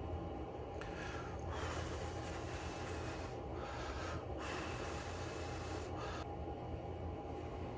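Several rasping strokes, probably a hand tool working the brass ring, heard over a steady low hum. The strokes come at about one, two, three and a half, and six seconds in.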